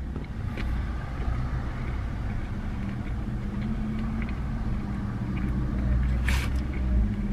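Steady low hum of a car idling, heard from inside the cabin, with faint chewing clicks and one short sharp click about six seconds in.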